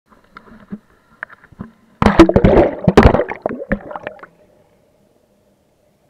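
Shallow river water splashing and sloshing close to the microphone, loud from about two seconds in until just past four seconds, with many sharp knocks through it. A few faint clicks come before it.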